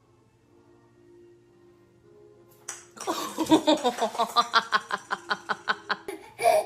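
A young child's voice: a rapid run of short repeated syllables, about six a second, starting about three seconds in, after a quiet stretch with a faint steady hum.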